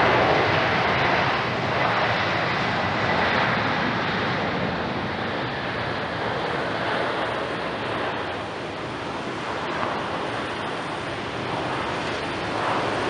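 Jet airliner engines running at taxi power: a steady rushing noise with a faint high whine in the first couple of seconds, slowly easing as the aircraft moves on.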